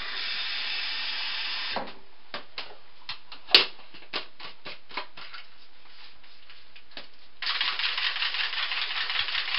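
Tap water runs into a plastic shaker bottle for about two seconds. Then come scattered clicks and knocks as the bottle is closed and handled, with one sharp snap about three and a half seconds in. From about seven and a half seconds the protein shake is shaken hard in the shaker bottle, a dense rattling slosh.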